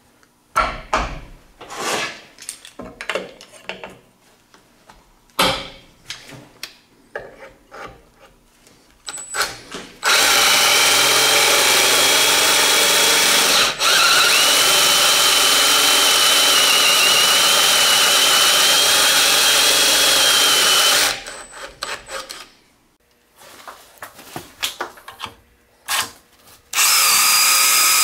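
Power drill running at a steady speed with a thin high whine as its bit bores through a welded aluminum drill-guide jig into a wooden post. It runs for about eleven seconds with a brief stop partway, then stops, and starts again near the end. Before and between the runs come scattered clicks and knocks of the tools and clamp being handled.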